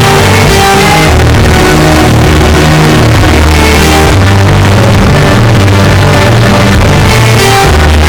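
Loud background music, rock-like, with held bass notes that change every second or so.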